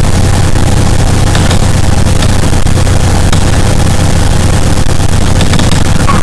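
A song playing back loudly through speakers and overloading the microphone, so it comes through as a steady, distorted rumble and hiss.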